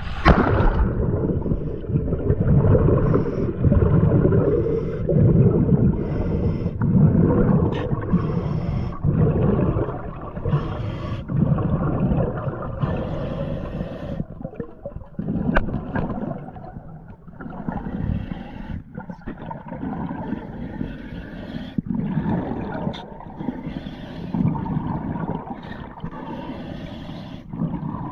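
Heard underwater: air bubbles from a diver's compressor-fed regulator gurgling and rushing over a low rumble, surging every couple of seconds.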